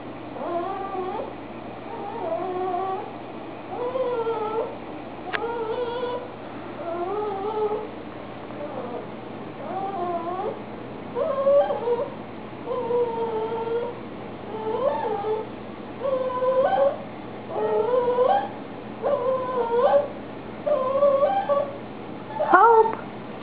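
A young puppy whining over and over, short high wavering cries about once a second that grow louder toward the end.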